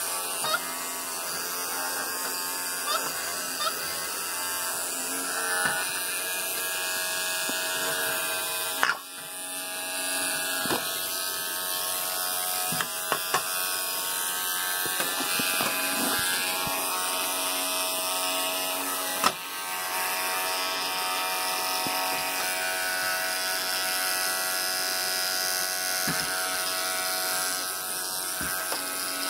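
Children's battery electric toothbrush running with a steady motor buzz, dipping briefly about nine seconds in. A few knocks sound as a capuchin monkey handles it, the sharpest about two-thirds of the way through.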